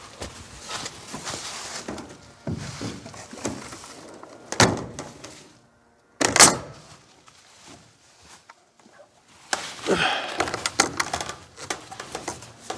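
Scattered knocks and thuds of boards being handled and fastened on a wooden hutch frame, with a loud sharp bang about six seconds in and a quick run of knocks and clicks near the end.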